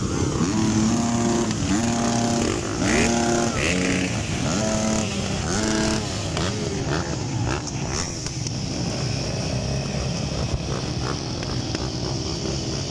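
Several motocross bikes running at the start line, throttles blipped about once a second in repeated rising revs for the first six seconds, then settling into a steadier mix of engines idling and revving as riders wait for the gate to drop.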